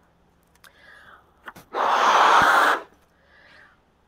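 A person blowing up a balloon by mouth: one long, loud breath out into the balloon lasting about a second, with quieter in-breaths before and after it.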